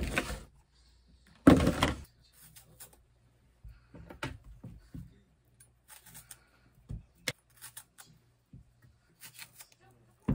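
Plastic strawberry clamshell rustling loudly twice, then a run of small clicks and taps as strawberries are hulled with a knife and set into a ceramic dish, over a low steady hum.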